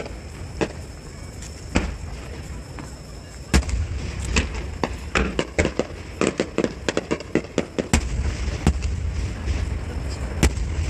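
Aerial fireworks bursting: scattered sharp bangs, then a rapid run of crackling pops from about five to eight seconds in, over a low rumble.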